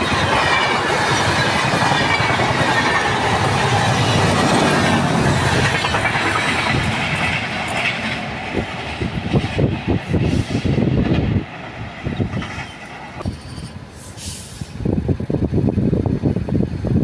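Superfast express train running through the station without stopping: a loud rush of wheels on rail, then a rhythmic clickety-clack of wheels over rail joints that drops away suddenly about eleven seconds in. Low rhythmic rumbling picks up again near the end.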